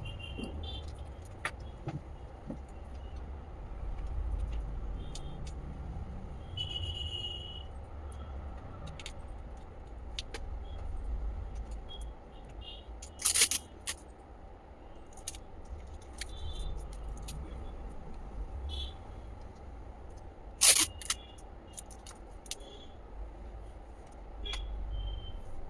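Scattered small clicks, ticks and scrapes of hands handling laptop parts, with two loud sharp snaps about a third and four-fifths of the way through, over a steady low rumble.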